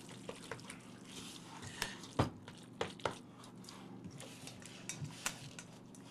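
A paddle stirring mayonnaise-dressed macaroni salad in a stainless steel mixing bowl: quiet mixing with scattered light taps and scrapes of the paddle against the bowl.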